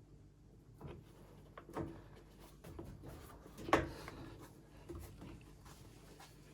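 Scattered clicks and knocks of hose clips and plastic parts being handled while the feed hoses of a washing machine's soap dispenser are clamped on, the loudest knock a little before four seconds in.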